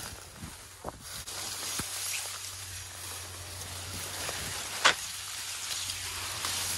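Tall grass and brush rustling and crackling as people push through it on foot, with one sharp snap about five seconds in.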